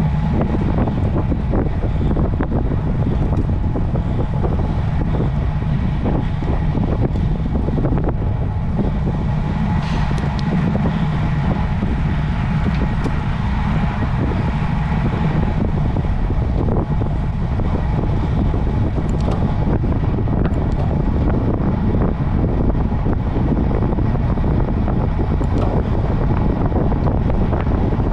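Steady rush of wind over the microphone of a camera riding on a road bicycle, with a constant low rumble.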